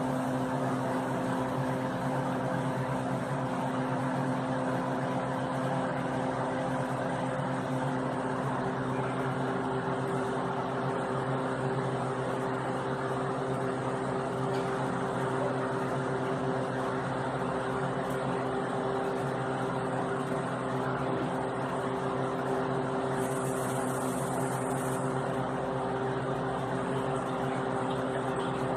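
A steady, unchanging machine hum: several held tones over a hiss.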